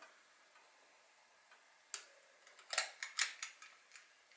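Faint light clicks and ticks from a metal ice-cream scoop and its release lever as waffle batter is scooped from the bowl and dropped onto the waffle iron plate: one click about two seconds in, then a quick cluster of them near the end.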